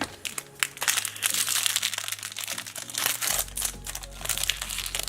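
Crinkly plastic packaging of a L.O.L. Surprise ball being handled and torn open as its next wrapped compartment is unwrapped: a rapid, continuous run of crackles and rustles.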